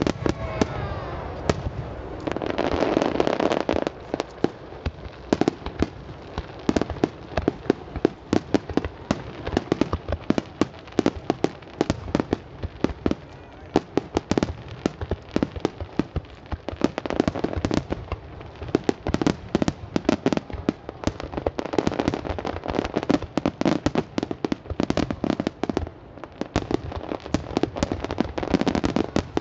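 Large star mine fireworks barrage: shells fired and bursting in rapid succession, many sharp bangs a second overlapping one another, with swells of denser crackling bursts.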